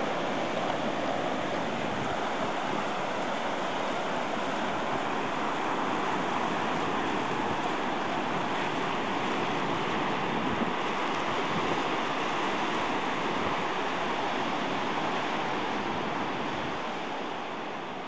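Ocean surf breaking and washing up a sandy beach: a steady rushing wash of waves that fades down near the end.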